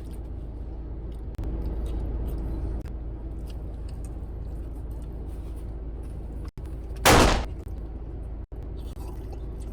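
Steady low rumble of car road noise heard inside the cabin, with one loud, short burst of noise about seven seconds in.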